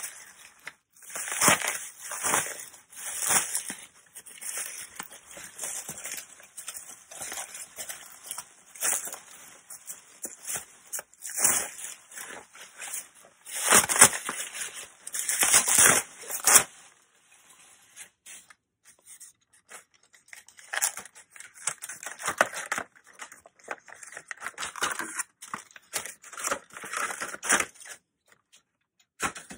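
Plastic bubble wrap crinkling and rustling in irregular handfuls as a parcel is pulled open. It is loudest about halfway through, goes quieter for a few seconds, then picks up again.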